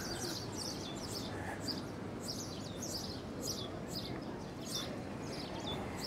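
Small birds chirping, many short high chirps a second overlapping throughout, over a steady outdoor background hiss.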